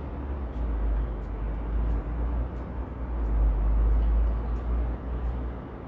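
Low, steady rumble with a faint hiss over it, swelling a little about three and a half seconds in.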